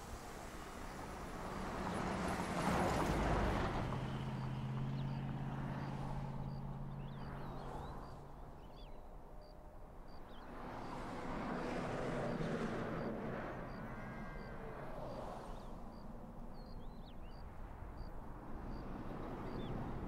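Outdoor road ambience: vehicles passing, heard as two slow swells of road noise with a low engine hum, the first about two seconds in and the second near the middle. Short bird chirps come through between them, over a faint high ticking about once a second.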